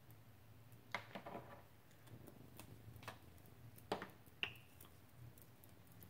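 A few faint, sharp clicks and taps from an African grey parrot's beak on a mirror and soft plastic toys, with one short high squeak about four and a half seconds in.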